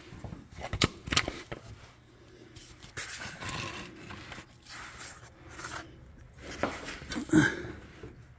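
Handling noise: light scrapes and rubbing as a phone camera is moved around under a utility vehicle's battery tray, with a couple of sharp clicks about a second in.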